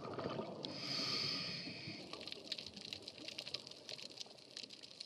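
Underwater reef ambience: a steady crackle of many small clicks, typical of snapping shrimp, with a scuba regulator hissing once as a diver breathes in, from a little before a second in to about two seconds in.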